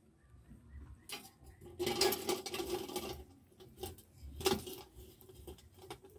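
Metal ladle scraping and clinking as burning embers are tipped onto a thin sheet-metal lid. The coals rattle across the metal, with a longer clatter about two seconds in and another sharp one about four and a half seconds in.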